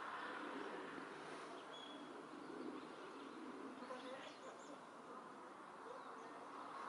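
Faint outdoor background hum with a few thin, high-pitched bird chirps, most of them about four seconds in.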